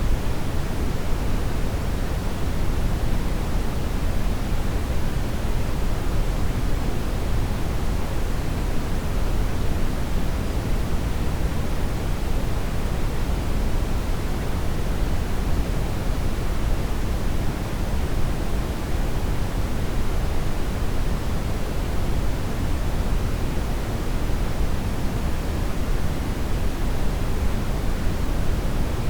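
Steady brown noise: an even, deep rushing hiss, strongest in the low end and fading toward the highs, with no changes.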